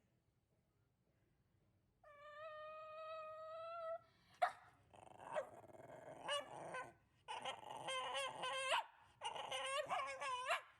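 A dog whining and yipping. A long, steady whine starts about two seconds in, followed by clusters of short, high whines and yips that bend up and down in pitch.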